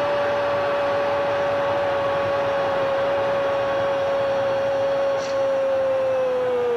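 Portuguese-language TV commentator's long drawn-out "gol" cry, held on one pitch and beginning to slide downward near the end, over a stadium crowd's steady noise after a goal.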